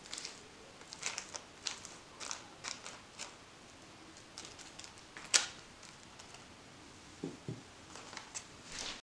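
Silicone spatula scraping and pressing thick oatmeal batter into a parchment-lined metal loaf pan: quiet, irregular scrapes and taps, with one sharp click about five seconds in and a couple of soft thuds near the end.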